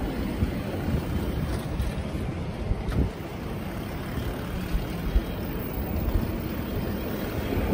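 Wind rushing over the microphone of a camera riding on a moving bicycle, over a low rumble of tyres on asphalt, with a few light knocks.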